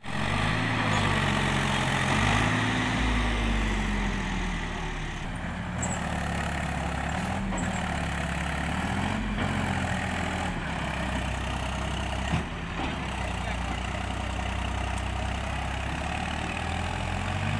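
Mahindra 275 DI tractor's three-cylinder diesel engine running under load while it pulls a loaded sand trolley through river water. The revs rise and fall several times. There is one sharp knock partway through.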